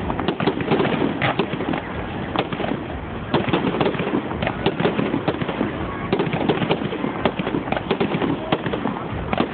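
Fireworks display: a rapid, dense string of bangs and crackles, several a second, with some louder reports among them, recorded through a phone's microphone.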